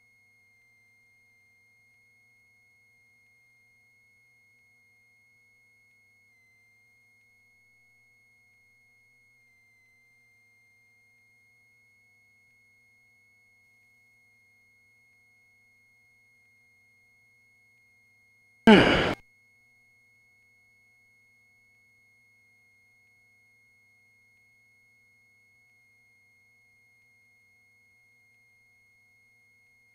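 Near silence with a faint, steady high-pitched electronic tone. About two-thirds of the way in, one brief loud burst falls in pitch. The idling aircraft engine is not heard.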